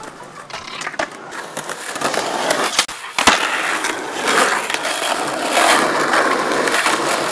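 Skateboard wheels rolling on rough asphalt, with a few light clicks early on and a sharp knock about three seconds in, after which the rolling gets louder and steadier as the board picks up speed.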